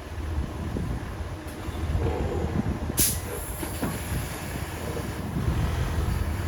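Heavy machinery running with a steady low rumble, and one sharp knock about three seconds in.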